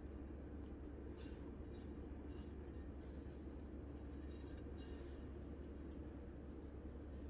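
Metal palette knife smoothing whipped cream onto a cake, heard as a few faint, soft scraping strokes over a steady low hum.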